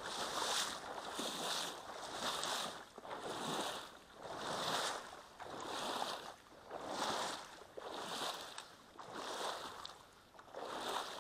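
Rhythmic swishing and sloshing of water, about one stroke a second, from someone moving steadily through shallow floodwater after a wounded duck.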